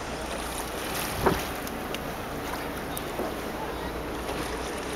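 Steady rush of water along the hull of a sailboat under way, with wind buffeting the microphone. There is one brief louder knock about a second in.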